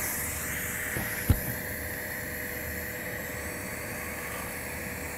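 TIG welding arc at about 120 amps putting a small tack weld on a beveled pipe coupon. A sharp click a little over a second in as the arc strikes, then a steady quiet hiss.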